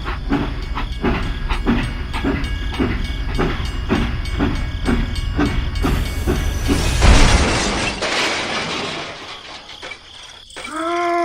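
A small engine chugging with a low rumble and a regular beat of about two knocks a second, followed by a burst of hiss about six seconds in. Near the end comes a short pitched tone that rises and falls.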